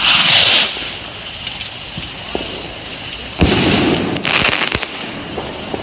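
Nuclear Power brand firework rocket launching with a short whoosh, then bursting with a sharp bang about three and a half seconds later, followed by a second of crackling stars.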